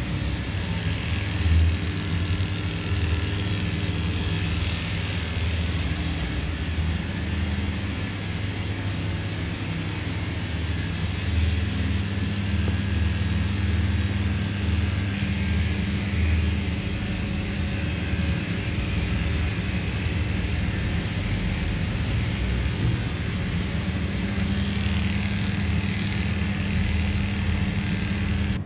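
Electric dog grooming clippers running with a steady hum while shaving off a dog's matted coat.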